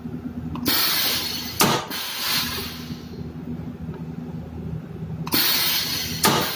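Pneumatic cable cutting machine making two cuts through copper-clad aluminium cable 22 mm across: each cut is a sudden rush of compressed-air hiss ending in a sharp snap, with the hiss trailing off afterwards. A steady low hum runs underneath.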